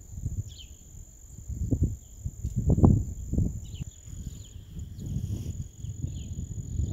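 Wind gusting on the microphone in low rumbling buffets, loudest about three seconds in. Under it run a steady thin high-pitched whine and a few faint, short high chirps.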